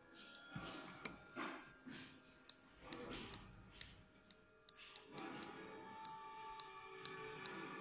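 Handheld EMP jammer firing in short pulses: a string of sharp, irregular clicks, about two a second.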